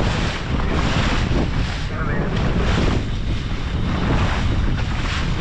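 Wind buffeting the microphone and water rushing and splashing along the hull of a small open boat under way at sea, in uneven gusts.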